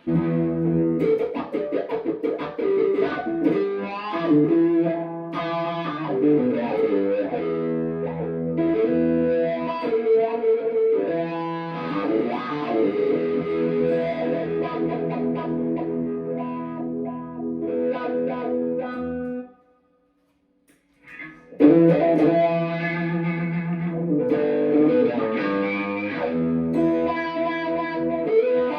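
Electric guitar played through a Dunlop Cry Baby wah pedal and a Mesa Nomad 100 amp, the wah sweeping the tone as the notes ring. The playing stops for about two seconds about two-thirds of the way in, then starts again.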